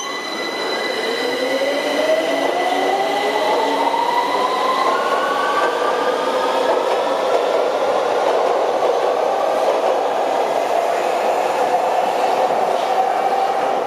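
Electric multiple-unit train pulling away, its traction motor whine rising smoothly in pitch over several seconds over the rumble of wheels on rails. A steady high tone stops about five seconds in.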